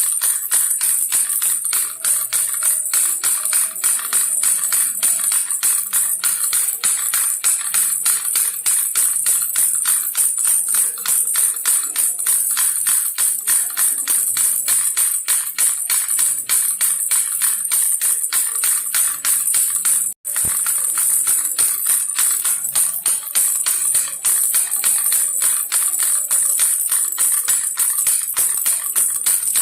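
Baby rattle shaken steadily and rapidly, a continuous jingling rattle. It cuts out for an instant about twenty seconds in and resumes.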